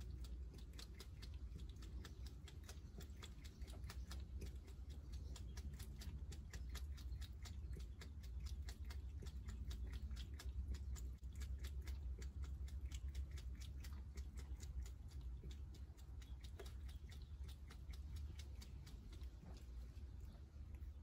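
A cat lapping water from a bowl: quick, regular wet clicks of the tongue, several a second, over a steady low hum.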